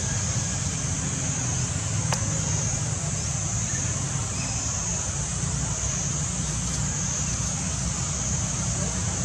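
Steady outdoor background noise: an even, high-pitched hiss over a low rumble, with a single faint click about two seconds in.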